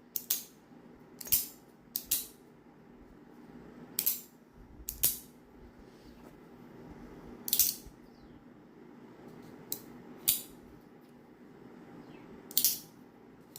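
Pocket knives being handled: about eight sharp metallic clicks, spaced irregularly a second or more apart.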